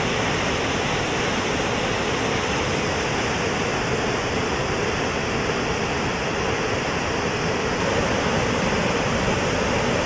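Water gushing through an opened reservoir sluice gate, a steady rushing sound that is even throughout. The gate has been opened to release irrigation water into the canals.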